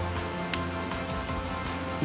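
Background music of steady held tones, with a single brief click about half a second in.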